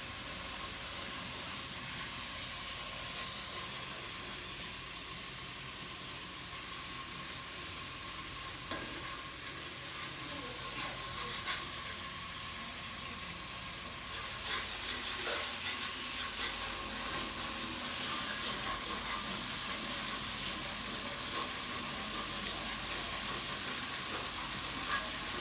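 Food frying in hot oil in a pan, sizzling steadily while it is stirred, with scattered short scrapes and taps of the utensil. The sizzling grows louder about halfway through.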